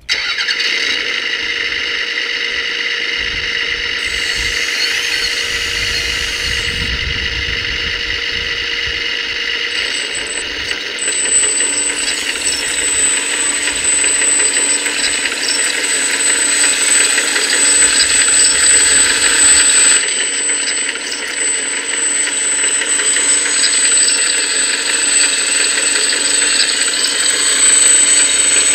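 Electric hydraulic pump of a Kabolite 336 RC hydraulic excavator running with a steady whine, under a rough mechanical clatter as the arm and tracks move. A higher, thin whine sets in about eleven seconds in.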